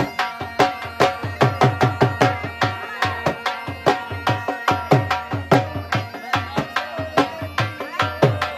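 Rhythmic drum music: fast hand-drum strokes, several a second, the low strokes falling in pitch, over steady sustained melodic tones.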